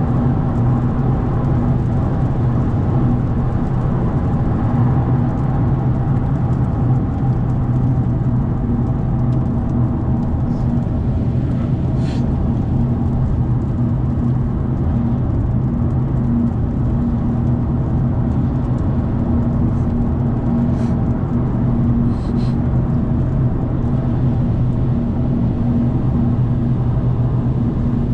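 Vehicle driving steadily at highway speed: an even engine drone with road and wind noise, holding the same pitch throughout, with a few faint ticks.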